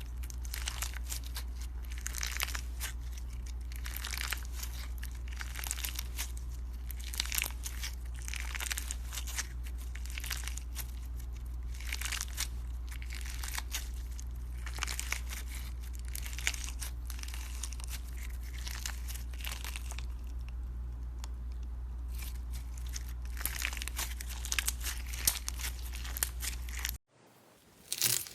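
Slime being squeezed and kneaded by hand, with many irregular crackling, crunching pops over a steady low hum. The sound cuts off abruptly near the end, followed by a brief silence and a few louder crackles.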